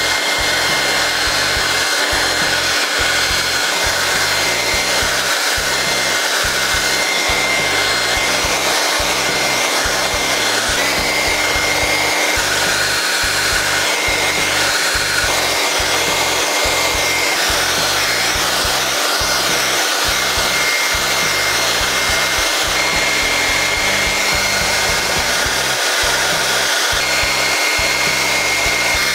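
Hand-held hairdryer running on high speed and medium heat: a loud, steady rush of air with a steady whine on top. The pitch steps up slightly about eleven seconds in.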